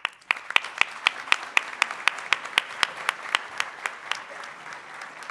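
Audience applauding. One set of sharp, close claps stands out at about four a second over the general clapping and stops about four seconds in, leaving the rest of the applause to thin out gradually.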